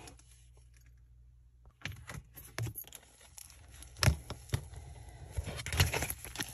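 Fingers squishing and pulling apart a soft buttercream clay slime cupcake, making sticky crackles and sharp little pops. The sounds begin about two seconds in, and the loudest pops come about four seconds in and near the end.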